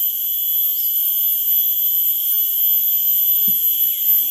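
A steady, shrill insect chorus droning without a break at a high pitch, several insects sounding together.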